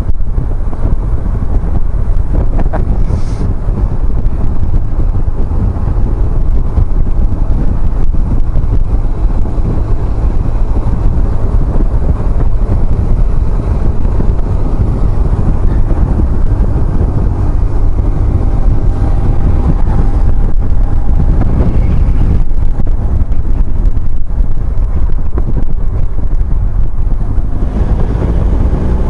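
Wind buffeting the microphone on a moving BMW R1150GS motorcycle, with the bike's boxer twin engine running underneath at road speed. Near the end the engine note rises as the bike accelerates.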